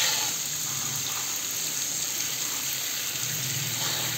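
Garden hose spray nozzle spraying water onto soaked potting medium in a tub: a steady hiss of water, topping up the water for soaking the medium.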